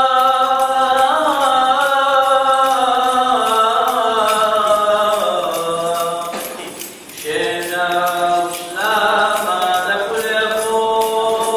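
Liturgical chanting in long held, slowly gliding notes, with a short pause about seven seconds in. Small bells jingle steadily along with it.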